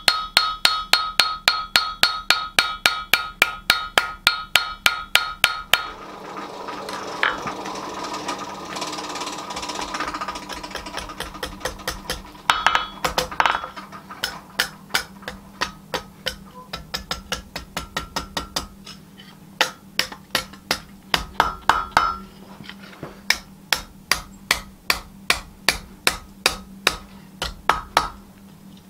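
Hand hammer striking red-hot spring steel on an anvil, in runs of about three ringing blows a second. The blows pause for a few seconds of steady noise about six seconds in, then start again in bursts.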